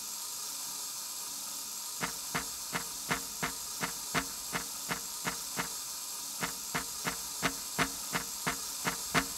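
Steady hiss, then from about two seconds in, regular sharp mechanical ticks at about three a second, pausing briefly in the middle: the clockwork of Hans Schlottheim's 1585 ship automaton running.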